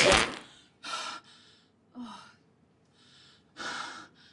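A woman's loud sneeze right at the start, with an explosive wet splatter of diarrhoea from the toilet she sits on. It is followed by three short gasping breaths.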